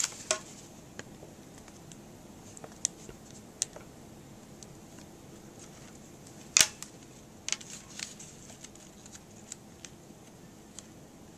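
Paper crackling and crinkling in short scattered clicks as a small origami seashell is folded and creased by hand, the loudest crackle a little past halfway.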